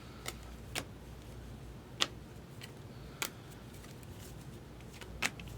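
Trading cards being flipped through by hand: a handful of short, sharp clicks and snaps spread out, the loudest about two seconds in, over a low steady hum.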